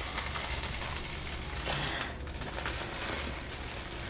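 Plastic cling wrap crinkling as it is pulled and peeled off a bleach-coated head.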